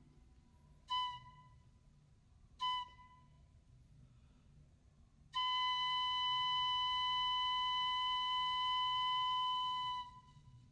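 A high, pure, steady tone in the manner of a heart monitor: two short beeps about a second and a half apart, then, after a pause, one long unbroken flatline tone of about four and a half seconds that cuts off suddenly. The flatline marks a death.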